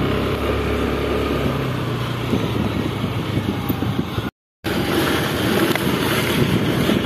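Diesel engine of an Eicher tipper truck running steadily as the truck pulls away over a dirt track. The sound drops out completely for a moment about four seconds in, then picks up again.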